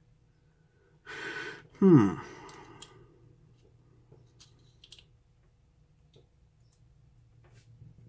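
A man's breathy exhale and a short sigh falling in pitch, straining at a stubborn job. A few faint clicks follow, from a screwdriver prying at the retaining clip on a lock cylinder.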